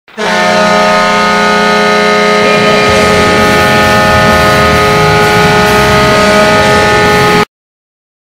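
Hockey arena goal horn blaring one steady multi-note chord, the signal that a goal has been scored, with a rougher noisy layer, likely crowd noise, coming in underneath after about three seconds. It cuts off suddenly near the end.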